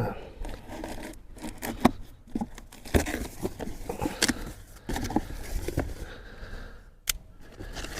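A product box and its packaging being pulled and torn open by hand: irregular scraping, tearing and crinkling with scattered clicks, and one sharp click a little after seven seconds in.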